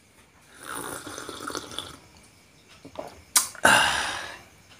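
A person sipping hot coffee from a glass, slurping for a second or two, then a sharp click about three and a half seconds in and a loud breathy sound that fades out.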